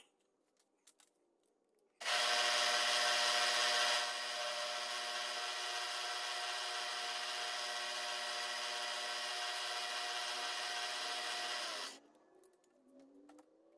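Milling machine running as an end mill takes a light cut across the end of a brass rod held in a dividing head: a steady multi-tone whine over a rushing cutting noise. It starts abruptly about two seconds in and stops about twelve seconds in, its pitch falling away as the spindle winds down.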